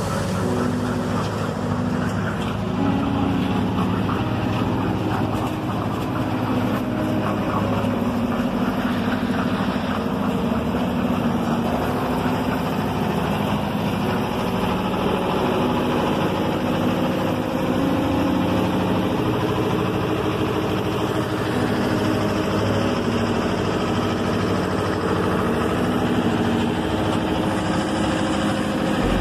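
Kirloskar air-cooled diesel engine on a concrete mixer machine with lift, running steadily under power.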